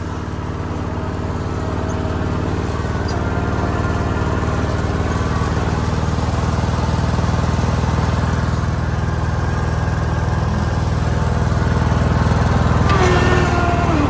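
Small petrol engine of a ride-on lawn mower running steadily, growing gradually louder as it draws nearer, with a shift in pitch near the end.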